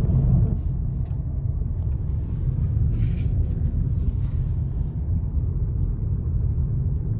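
Car driving, heard from inside the cabin: a steady low rumble of engine and road noise, with a brief hiss about three seconds in.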